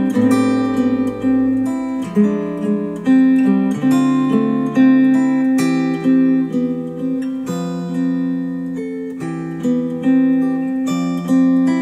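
Instrumental guitar music, a run of plucked notes that ring and overlap, played back through Focal Chora 806 bookshelf speakers driven by an NAD C700 integrated amplifier and picked up by microphones in the room.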